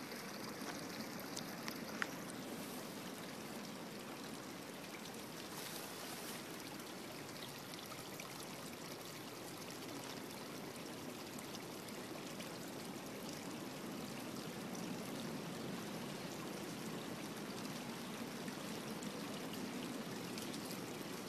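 Water from a spring running down a small rocky rivulet in a steady trickle. There is one sharp click about two seconds in.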